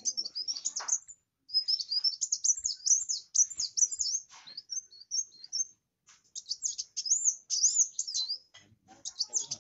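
Kolibri wulung (kowul) sunbird singing in a gacor way: a rapid, high, twittering song of quick sweeping chirps and trills. It comes in bursts, with brief pauses about a second in and about six seconds in.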